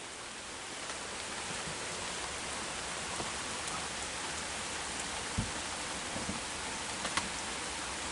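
Heavy rain falling steadily, with a few louder drops ticking close by and one brief low thump about five seconds in.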